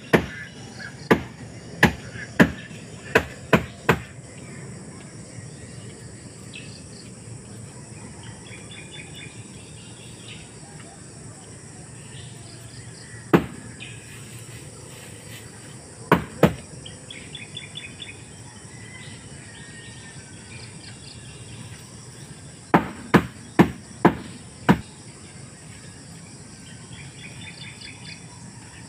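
Sharp knocks, a few a second in a run of about six near the start and another run of about five later, with single and double knocks between. Insects buzz steadily underneath, with short pulsed chirps now and then.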